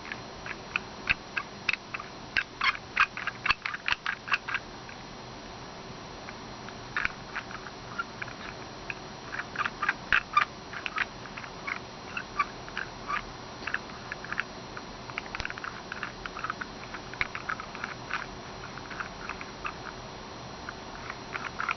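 A wooden puzzle box's pieces being turned and ratcheted by hand: small, sharp wooden clicks and ticks in irregular clusters, some quick runs of several ticks together.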